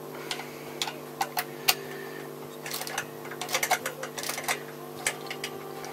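Screwdriver and metal parts clicking and clinking against the Kawasaki H1 500's carburettors: a few separate sharp clicks, then quick clusters of small taps and rattles, over a steady low hum.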